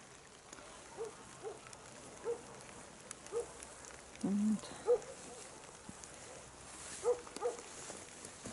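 Animal calls: about eight short pitched calls at uneven intervals, with one lower, louder, longer call about four seconds in.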